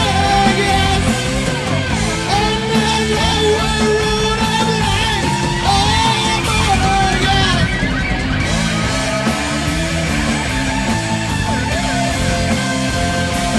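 A stoner rock band playing loud: distorted electric guitar, bass and drums under a shouted, sung vocal. The vocal stops a little past halfway and the band plays on.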